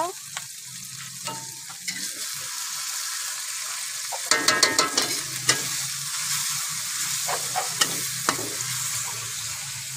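Spice paste sizzling in hot oil in a wok while a metal spatula stirs and scrapes it. A quick run of ringing metal-on-metal scrapes comes about four to five seconds in, and a few more knocks of the spatula near eight seconds.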